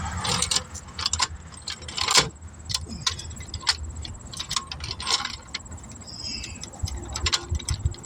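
Irregular metallic clicks and clanks of tools being handled while getting ready to jack up the vehicle, the loudest about two seconds in, over a low rumble of wind on the microphone.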